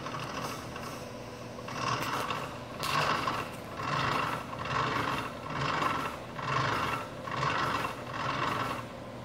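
Rear axle hub and brake rotor spinning with the wheel off, making a rubbing whir that swells and fades about once a second. This is the axle or differential noise being tracked down.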